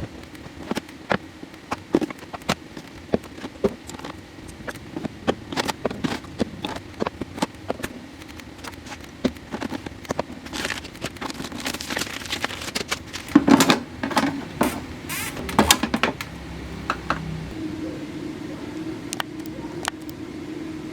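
Irregular clicks, knocks and rustles of small objects being handled and set down, busiest and loudest from about halfway to near the end, over a steady low hum.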